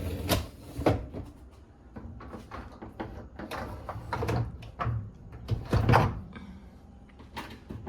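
Dishwasher racks being slid along their rails and the door being closed: a run of clattering knocks with low rumbles, the loudest knock about six seconds in.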